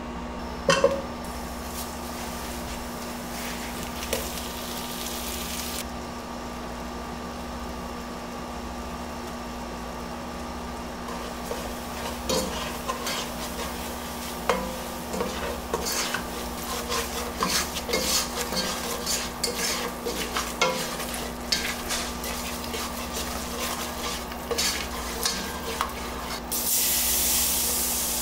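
A slotted spatula stirring and scraping a butter-and-flour roux in a saucepan on the stove, with light sizzling and repeated clicks against the pan. Near the end, milk is poured into the hot roux and it hisses louder.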